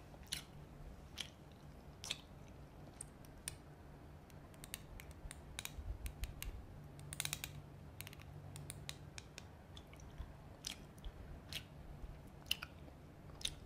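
Gum chewing: soft, irregular clicks and smacks of the mouth.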